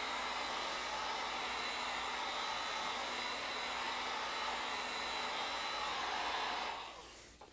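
Electric heat gun running steadily, blowing hot air onto old grip tape on a golf shaft to soften the tape and its glue for removal. The noise dies away about a second before the end.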